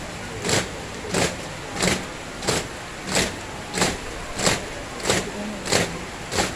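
Car windshield wipers sweeping back and forth in the rain, a swish about every two-thirds of a second, over the steady hiss of the car and rain.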